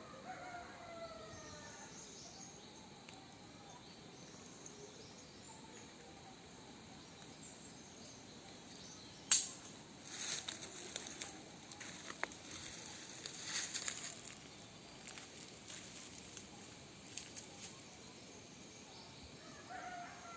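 Faint outdoor ambience. A sharp click comes about nine seconds in, followed by several seconds of scattered crackling and rustling.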